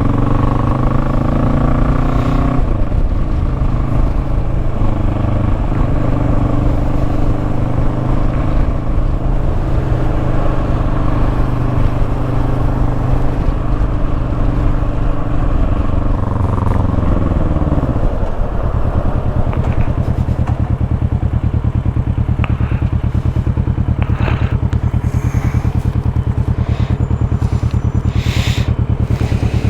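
Motorcycle engine running under way. Its pitch drops about two and a half seconds in, holds steady, then winds down around seventeen seconds in and settles into a steady idle for the rest.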